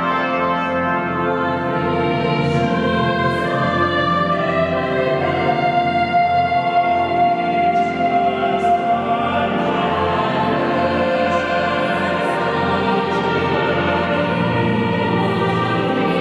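Cathedral choir of children's and adult voices singing a choral piece in held, overlapping parts.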